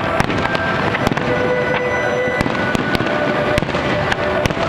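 Aerial fireworks shells bursting: a dozen or so sharp bangs at irregular intervals.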